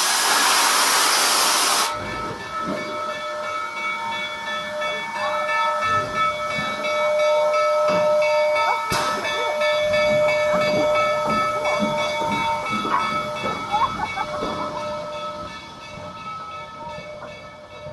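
Steam locomotive at a standstill, letting off a loud hiss of steam that cuts off suddenly about two seconds in. After that comes a steady high-pitched tone from the engine that fades near the end.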